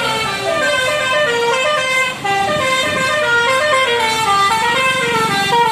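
Multi-tone telolet/basuri bus horn playing a quick melody of short stepping notes, with a brief break about two seconds in.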